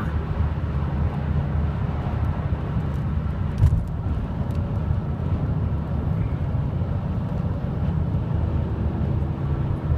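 Steady low rumble of road and engine noise inside a car's cabin at highway speed, with a single thump a little under four seconds in.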